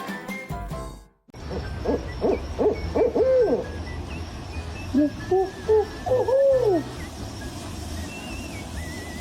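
An owl hooting in two quick runs of short hoots, the first starting about two seconds in and the second about five seconds in, with faint bird chirps behind. Background music plays for the first second, then cuts off.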